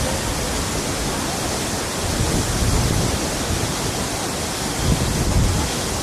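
Waterfall, a steady loud rush of falling water, with two stronger low swells about two and five seconds in.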